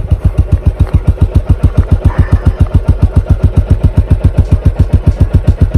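New-generation Royal Enfield Classic 350's single-cylinder engine idling through its stock exhaust, an even low thump at about eight beats a second: the classic "dug dug" idle.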